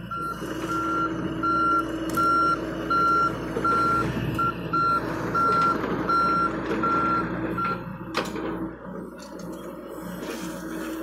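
John Deere compact excavator's travel alarm beeping a little faster than once a second over its running diesel engine and hydraulics; the beeping stops about three-quarters of the way through. A sharp knock follows just after the beeping ends.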